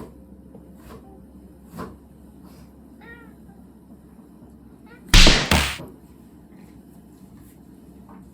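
Two house cats fighting: a few short, faint cries and a brief call, then two loud, sharp hissing bursts a little after halfway.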